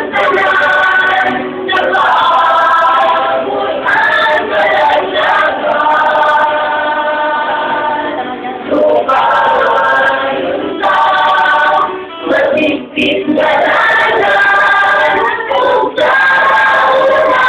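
Small mixed choir of women and men singing a hymn together, with a brief dip between phrases about twelve seconds in.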